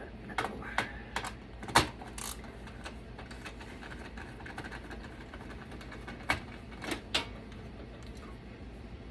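Sharp metal clicks and clanks of tools and parts while a desktop computer is taken apart by hand: a quick run of knocks in the first two seconds, then two more a few seconds later.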